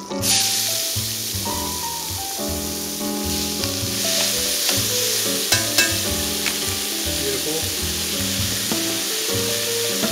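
Sliced onions dropped into hot oil in an enameled cast-iron Dutch oven, breaking into a sizzle that starts suddenly and keeps on steadily as they fry. A few sharp clicks come about halfway through.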